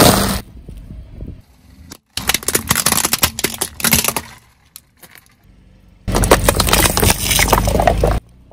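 Car tyre rolling over and crushing plastic on asphalt. First comes a run of crackling and snapping as brittle red plastic breaks under the tyre. After a short lull, a second, louder burst of crunching follows as plastic bottles full of red liquid are flattened and burst.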